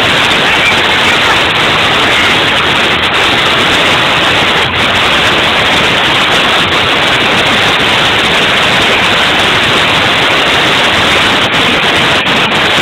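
Loud, steady static-like noise with no clear music or voices in it, the sound of an overloaded, heavily distorted recording.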